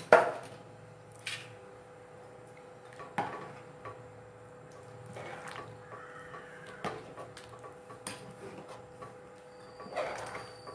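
A spoon knocking and scraping against an aluminium pressure cooker while a wet rice-and-vegetable mixture is stirred, with sharp knocks every second or two, the loudest right at the start. A faint steady hum runs beneath.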